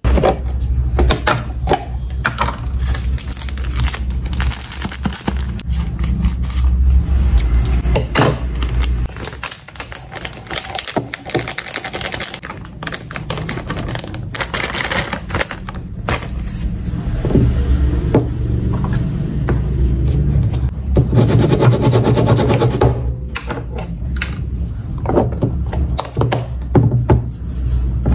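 Clicks and knocks of a clear plastic airtight container being opened and handled, and the crinkle and hiss of a plastic bag of white powder being poured into it, twice, over background music with a steady beat.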